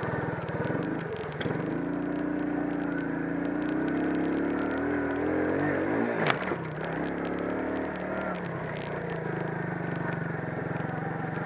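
Single-cylinder 250 cc ATV engine running on a rough trail. Its note climbs as it is throttled up for a few seconds, then eases back, with rattling from the bumps. A sharp knock comes about six seconds in.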